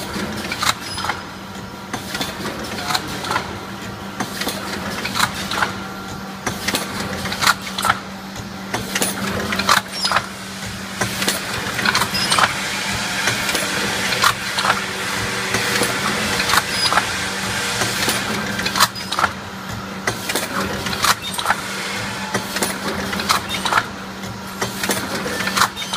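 CP3004 high-speed K-cup filling and packing machine running, with a steady hum under frequent sharp clacks and clicks from its pneumatic cylinders and indexing cup plate. A hiss swells for several seconds in the middle.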